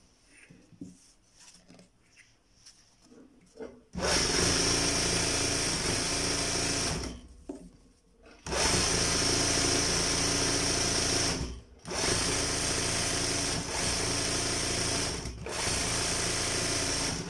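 Electric sewing machine stitching free-motion embroidery on hooped fabric, its motor turned up to a speed setting of 1700. Quiet for about the first four seconds, then it runs steadily in four bursts of a few seconds each, with short stops between them.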